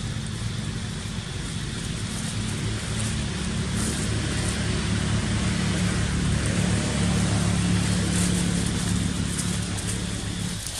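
An engine running with a steady low hum, growing somewhat louder and then cutting off suddenly just before the end.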